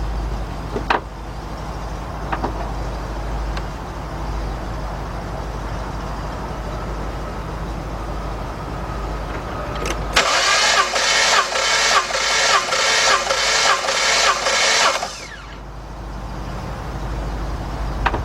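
Starter cranking the 3.7 L V6 of a 2003 Jeep Liberty for about five seconds during a compression test, pulsing about twice a second and then stopping suddenly; the gauge on this cylinder reads close to 150 psi. Before the cranking there is a steady low hum and a couple of light clicks.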